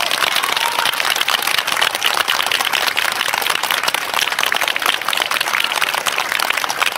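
Crowd applauding: dense, even clapping.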